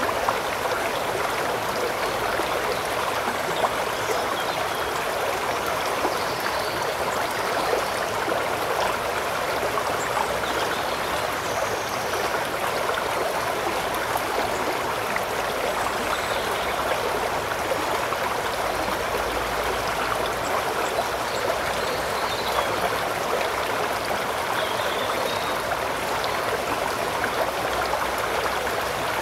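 River water running: a steady, even rush of a stream flowing over stones.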